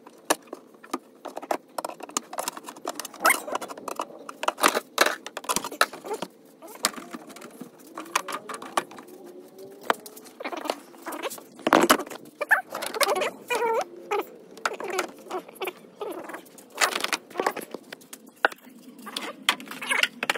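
Plastic cowl panel and its rubber seal on a 2011 Toyota Sienna being pried and pulled off the car, with many irregular clicks and snaps as retaining clips let go, and short creaks of flexing plastic.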